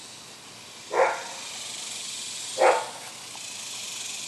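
Dachshund barking twice, two short sharp barks about a second and a half apart, over a steady high hiss.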